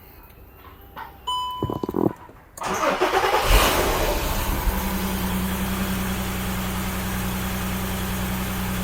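Skoda Superb's VR6 six-cylinder engine cranking and catching on a cold start about two and a half seconds in, then settling into a steady idle. Just before it there are short beep tones and a few clicks. The engine is logging misfire faults that the mechanic traces to a badly leaking PCV valve.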